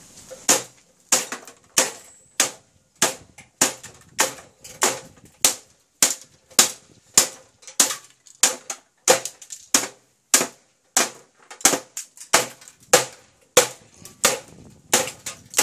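A desktop computer being struck over and over, sharp hard blows about two a second.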